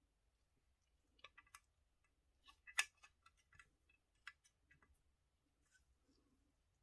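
Light clicks and taps of small hard model-car parts being handled, a few short flurries with one sharper tap just before three seconds in.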